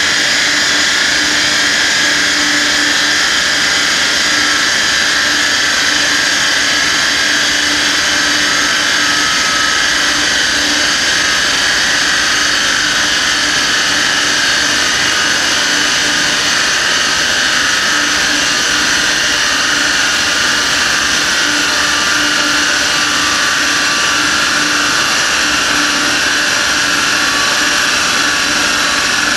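Steady whirring rush of a dynamometer's large electric cooling fan running together with the car on the rollers, holding one even pitch with a constant hum and no revving.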